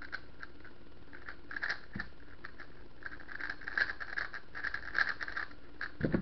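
Gans 356S V2 Advanced speed cube being turned fast by hand: rapid plastic clicking and scraping of its layers in quick runs, with a louder knock near the end.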